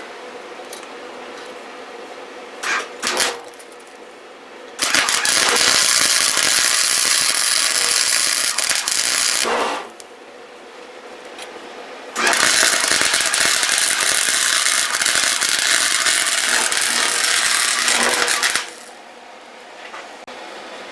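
Electric arc welding on sheet-metal body parts: two long welding runs with a steady crackle, the first about five seconds and the second about six. A couple of short metal knocks come before the first run.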